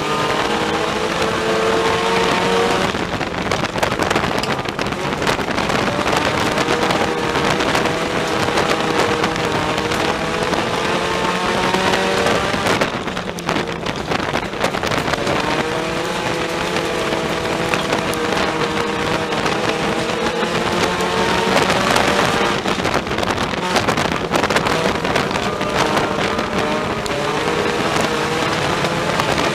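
Four-cylinder engine of a Ford Focus sport compact race car heard from inside the cockpit at racing speed. The revs climb and fall repeatedly lap after lap, with a brief lift-off about halfway through, over a constant rush of noise.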